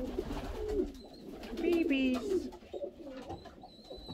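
Racing pigeons cooing, several low wavering coos overlapping. About two seconds in there is a brief high squeak.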